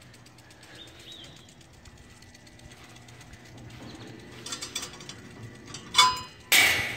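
Steel trailer hardware being handled: light metal rattles and clicks as a latch pin and locking bar are worked, then a sharp clank about six seconds in and a short harsh rush of noise just after, as the bar is swung open.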